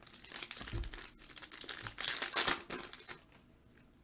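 Foil wrapper of a Panini Phoenix football card pack crinkling as it is handled and torn open, loudest about two seconds in and stopping shortly before the end.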